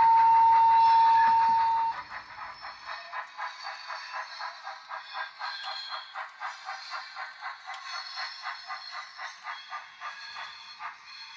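Sound decoder of a Tillig TT-scale BR 52 steam locomotive model, playing its Henning steam sound through the model's small loudspeaker: a steady single-tone whistle, cut off about two seconds in, then rhythmic chuffing as the train runs.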